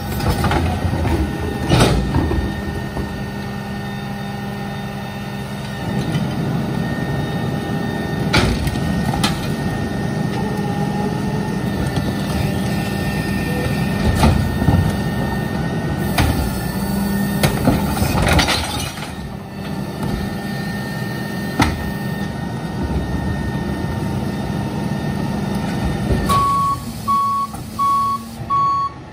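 New Way rear-loader recycling truck running while its cart tippers lift and dump recycling carts into the hopper, with repeated knocks of carts and lids banging. Near the end a steady repeating electronic beep alarm starts.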